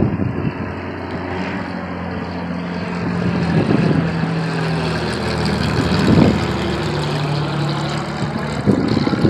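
Light single-engine propeller airplane, a high-wing type, droning steadily as it flies low overhead. It grows louder to a peak about six seconds in, and its engine tone drops in pitch as it passes.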